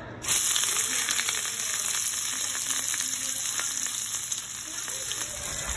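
Chilean sea bass fillet laid skin side down in very hot oil in a pan: the oil starts sizzling suddenly as the fish goes in, then keeps frying steadily as the skin sears.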